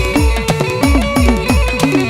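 Gujarati devotional folk music played loud: deep drum strokes that slide down in pitch, about two a second, over sustained melodic notes.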